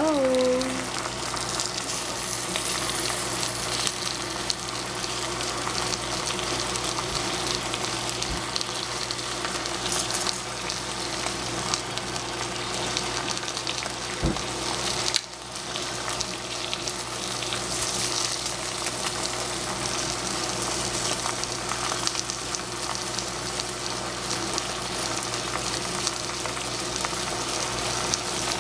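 Spinach sizzling as it fries in oil in a stainless steel saucepan, a steady hiss with a low hum underneath. The sizzle drops briefly about fifteen seconds in.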